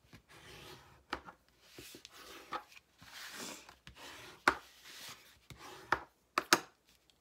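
Bone folder rubbed along the fold of a manila file folder to burnish the crease: repeated scraping strokes, about one a second, with a few sharp taps among them.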